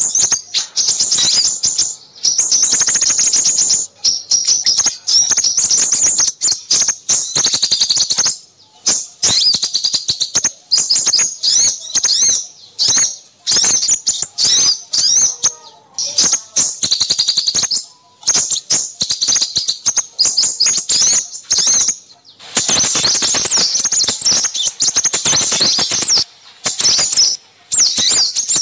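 Busy, high-pitched chirping and fast trilling of small songbirds, with notes crowding one on another and only brief pauses. It is a noisy small-bird chorus of the kind played as a lure call for crimson sunbirds.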